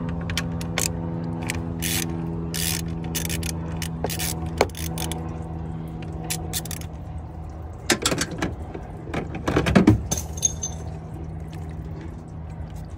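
Scattered clicks and rattles of a thermostat housing and rubber coolant hose being worked loose by hand in an engine bay, with a louder burst of knocks and rattles about eight to ten seconds in. A steady low hum runs underneath.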